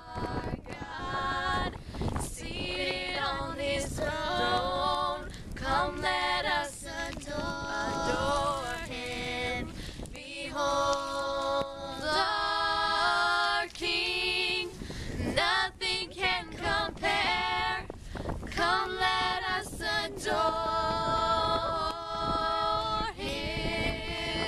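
Two teenage girls and a younger girl singing a worship song a cappella in harmony, with brief breaks for breath. A steady low wind rumble on the microphone runs underneath.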